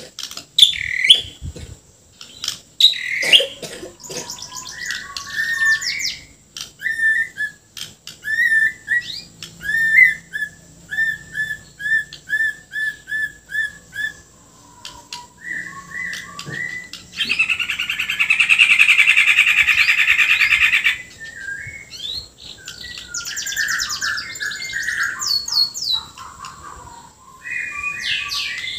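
White-rumped shama (Bornean murai batu) singing a long, varied song of whistles and chirps. Partway through comes a run of about ten quick repeated notes, then a loud, harsh buzzing rattle lasting nearly four seconds, part of its mimicked filler repertoire.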